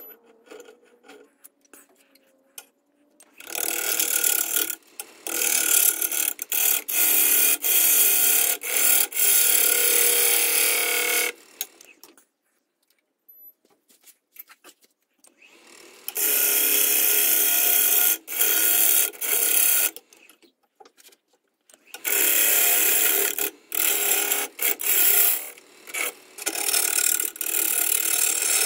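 Turning tool cutting into a spinning eucalyptus burl bowl blank on a wood lathe. The loud cutting noise comes in runs of several seconds that start and stop abruptly, with short breaks where the tool leaves the wood. It is quiet in the first few seconds and again for a few seconds around the middle.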